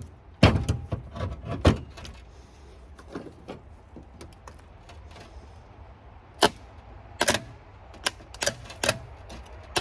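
Metal tools and starter parts clinking and knocking as they are handled, with a quick run of knocks in the first couple of seconds and then single clinks every second or so.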